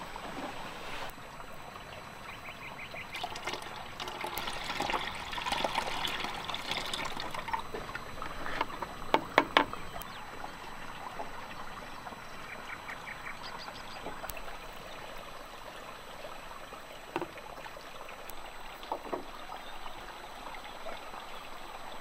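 Mare's milk poured from a bucket through a plastic strainer into a plastic bucket, a splashing trickle that swells for several seconds. About nine seconds in come a few sharp knocks, the loudest sounds.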